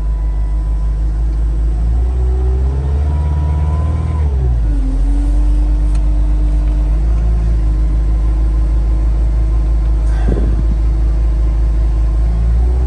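Cat 259D compact track loader's diesel engine running just after a cold-free, trouble-free start, heard from inside the cab: its pitch rises slightly and then drops about four seconds in, after which it runs steadily. A brief clunk near ten seconds.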